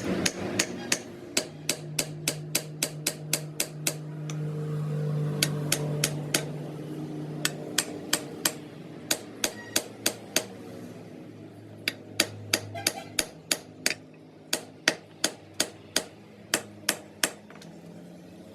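Hammer blows on metal, struck in runs of quick, sharp hits about three a second with short pauses between runs, over a steady low hum.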